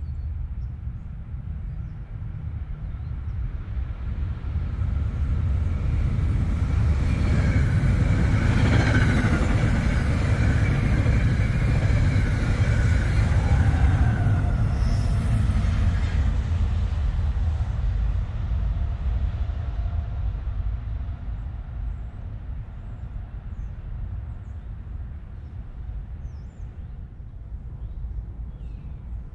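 NJ Transit electric passenger train, a locomotive hauling bilevel coaches, passing on the next track. A low rumble of wheels on rail builds over several seconds and is loudest in the middle, with a higher metallic whine over it. It then slowly fades away.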